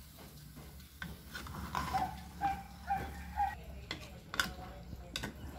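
A spoon stirring shredded young coconut through thick caramelized muscovado sugar in a metal pot, with a few sharp knocks of the spoon against the pot.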